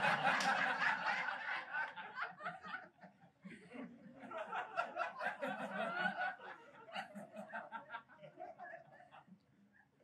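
Comedy club audience laughing, loudest at the start and trailing off to scattered chuckles toward the end.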